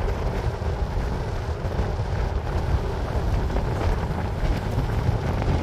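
Wind buffeting the microphone of a rider moving along on a Onewheel: a steady, gusty low rumble.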